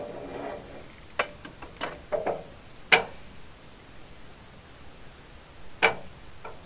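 A handful of sharp clicks and knocks at irregular spacing, the loudest about three seconds in and another near the end, over a faint background.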